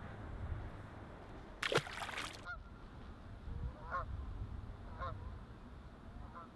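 A short splash of water about two seconds in, the bass being released back into the lake, followed by geese honking, a few short calls about a second apart.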